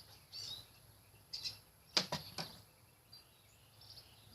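Light clicks and taps of small plastic remote parts being handled: a few faint ticks, then three sharper clicks close together about two seconds in.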